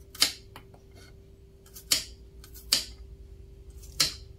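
Kitchen knife slicing peeled garlic cloves on a wooden cutting board: about four sharp knocks of the blade hitting the board, irregularly spaced.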